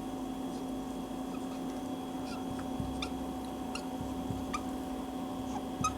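A marker pen writing on a whiteboard, making short faint squeaks and ticks, over a steady electrical hum.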